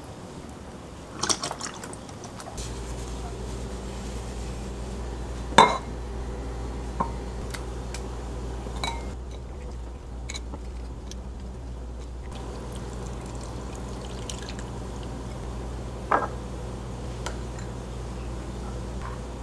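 Coconut milk poured from a carton into a glass pitcher of chopped watermelon, then scattered clinks and knocks of dishes and utensils over a steady low hum. The sharpest knock comes about five and a half seconds in, and another near sixteen seconds.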